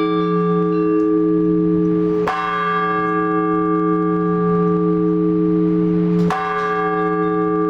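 A single large Orthodox church bell struck twice, about four seconds apart, in the slow, even strokes of the blagovest that calls people to the liturgy. Between strokes the bell rings on with a deep hum.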